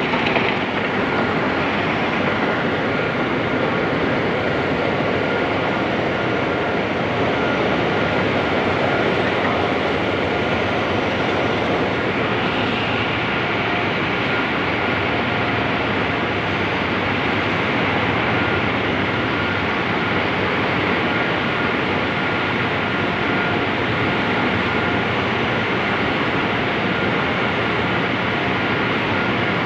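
Steady, loud din of heavy industrial machinery running in a plant hall, with a faint constant high whine through it.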